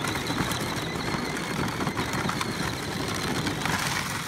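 Peg-Perego Polaris electric ride-on quad driving across loose dirt and gravel: a steady rough rattle and crunch from its hard plastic wheels and geared electric motor.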